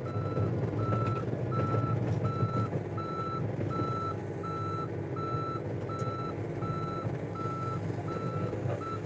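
Komatsu PC35MR mini excavator's backup alarm beeping steadily at one pitch, a bit under two beeps a second, as the machine reverses on its tracks, over the steady running of its diesel engine.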